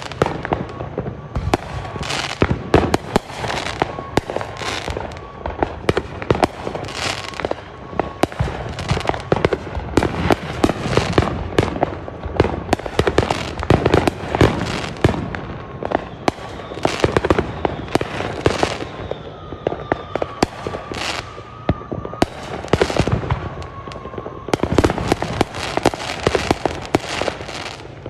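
Fireworks going off in rapid, irregular succession, many sharp bangs and crackles overlapping with hardly a pause.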